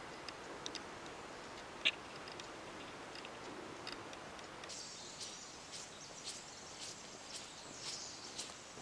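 Quiet outdoor background with a few faint ticks and one sharp click, then, about five seconds in, footsteps start, about two steps a second.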